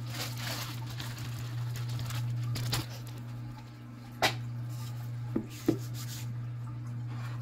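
Soft rustling in the first few seconds as flour is dusted onto the tabletop, then a sharp knock about four seconds in and two more just after five seconds as a plastic rolling pin is handled on the table. A steady low hum runs underneath.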